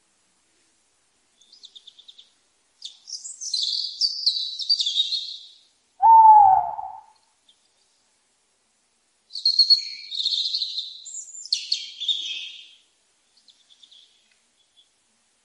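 Small birds chirping and twittering in quick, high clusters of notes, with one louder, lower single call about six seconds in.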